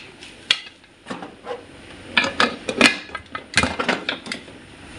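Metal spoon scraping and knocking against a pressure cooker pot as a thick curry is stirred, in irregular clinks and scrapes.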